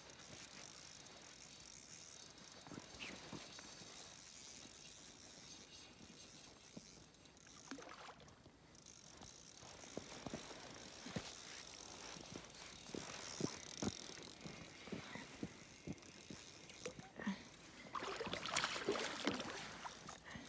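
Fishing reel being cranked to bring in a hooked fish, with scattered irregular clicks. Near the end, a louder stretch of splashing as the fish thrashes at the surface.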